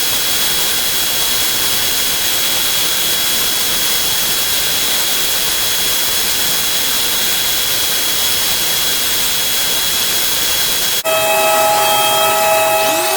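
Electric power sander running steadily, a hissing whir with a thin high whine, sanding small cut-out wooden letters. About eleven seconds in it cuts off abruptly to a different motor sound with several steady tones, which rises in pitch near the end.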